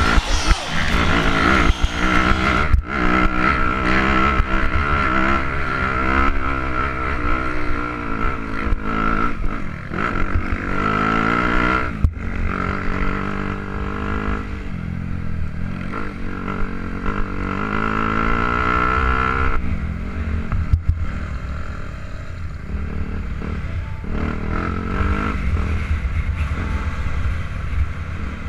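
Dirt bike engines revving up and down as the bikes ride a dirt track. A steady high-pitched whine runs over them and stops about two-thirds of the way through.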